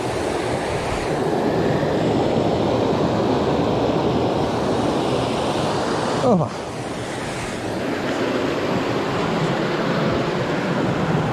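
Steady rushing roar of the Tiu Kelep waterfall's falling water. About six seconds in, a brief voice slides down in pitch.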